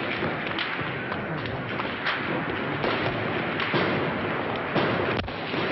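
Sharp cracks at irregular intervals, about two or three a second at times, over a steady hiss.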